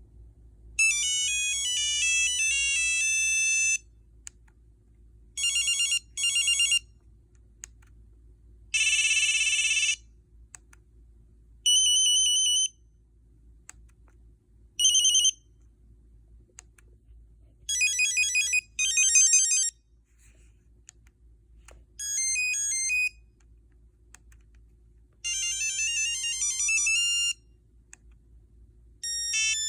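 Nokia 6340i ringtones played one after another through the phone's speaker: short single-line beeping melodies, each a second to a few seconds long, with brief pauses between them.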